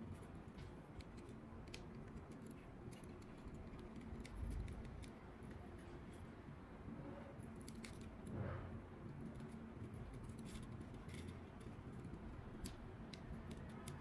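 Faint scattered small clicks and taps of hands working with tools and a cable, with two dull low bumps about four and a half and eight and a half seconds in.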